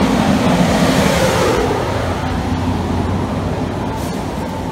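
Loud, steady downtown street traffic, with a city bus's diesel engine running as the bus pulls up along the curb.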